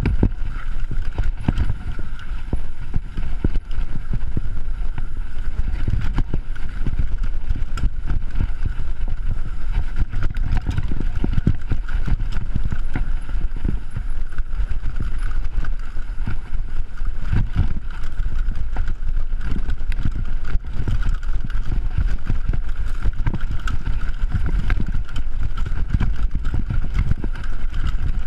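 Mountain bike descending a rough dirt trail at speed: a constant rumble of tyres over the ground, with frequent rattles and knocks from the bike as it goes over bumps.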